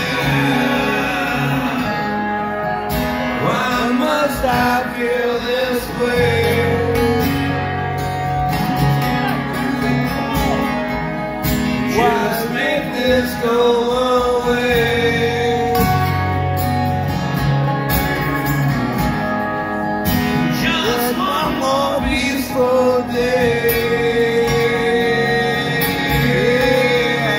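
Live acoustic band music: strummed and picked acoustic guitars with a male voice singing, recorded from the audience in a large hall.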